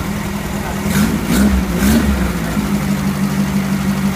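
1600cc single-port air-cooled VW flat-four engine idling on an engine stand, given a few quick blips of throttle between about one and two seconds in, then settling back to a steady idle.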